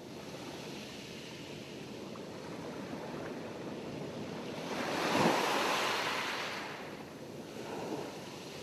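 Ocean surf: a steady wash of waves, with one louder swell about five seconds in that fades away over the next two seconds and a smaller swell near the end.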